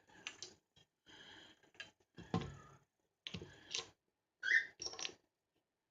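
Light metal clicks and rattles of survival-kit tool parts being handled and turned, including a brief squeak about four and a half seconds in.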